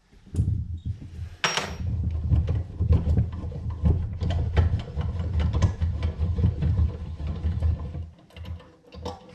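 Metal drill-press parts rattling and clicking as they are handled and worked, in a dense run of small knocks, with a sharp metallic scrape about a second and a half in. The rattling stops about 8 seconds in.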